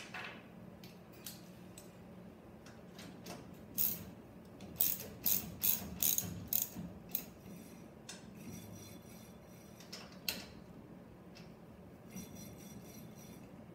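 Hand tools working on a go-kart front wheel hub as its nylon lock nut is tightened. There is a run of sharp metal clicks and clinks about five to seven seconds in, and quick ratchet clicking twice, at about eight seconds and again near the end.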